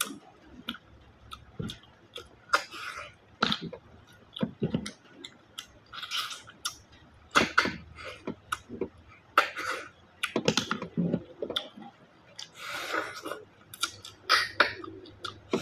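A person sucking cooked freshwater snails (bisukol) out of their shells: repeated short, sharp slurps at irregular intervals, with chewing in between.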